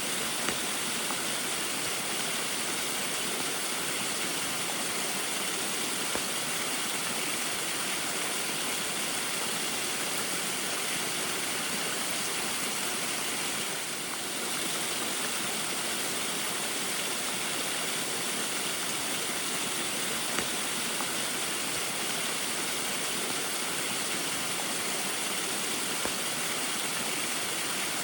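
Small waterfall falling steadily in the rain: an even rush of water with a few faint ticks.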